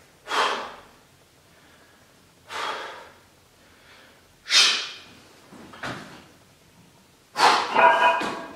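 A man taking a few sharp, forceful breaths about every two seconds to brace for a heavy barbell curl. Near the end comes a louder, strained voiced grunt of effort as he curls the bar.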